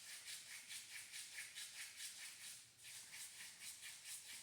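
Hands rubbing hard and fast along the face beside the ears, skin-on-skin friction in a steady rhythm of about four strokes a second, with a short break near three seconds in.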